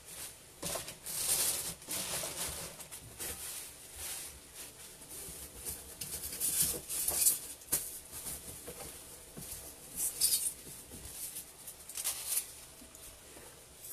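Hands rummaging through craft scraps for a piece of styrofoam: rustling and crinkling that come and go, with light knocks and clicks.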